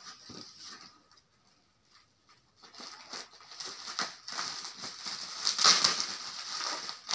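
Plastic bag crinkling and rustling as it is handled and cut open with scissors, starting about two and a half seconds in and loudest near the end.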